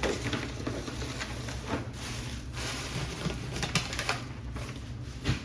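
Clothing packaging being handled and opened, rustling and crinkling irregularly with sharp crackles, the loudest about four and five seconds in.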